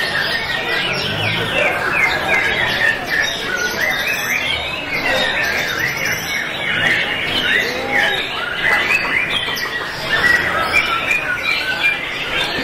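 Many caged white-rumped shamas (murai batu) singing at once, a dense tangle of overlapping whistled phrases and chirps.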